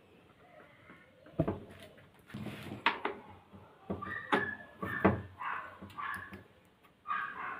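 Clicks and knocks of metal bicycle wheel parts, hub, axle and nut, being handled and fitted onto a stand, about half a dozen sharp ones, with several short high squeaks between them in the second half.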